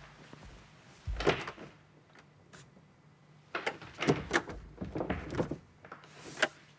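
A door being handled: a sharp clack about a second in, then a run of clattering knocks and rattles for about two seconds, and one last clack near the end.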